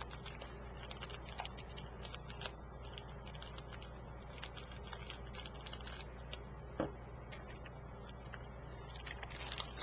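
Faint, scattered light clicks and ticks of small beads and their plastic bags being handled, with one sharper click about seven seconds in.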